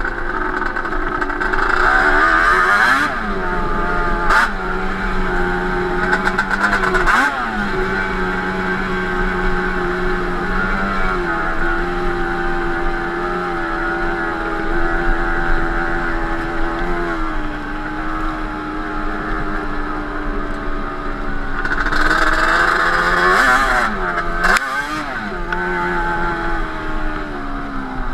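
Yamaha Banshee 350 twin-cylinder two-stroke ATV engine, breathing through Toomey T5 expansion-chamber pipes, running under way. It revs up and falls back sharply several times, with steadier stretches of cruising in between.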